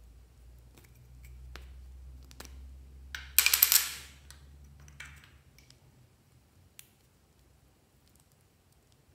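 Plastic lip balm tubes handled and uncapped: scattered light clicks of the caps, and a little after three seconds a loud burst of rapid plastic clicking and crackling. A faint low hum runs underneath and stops about five seconds in.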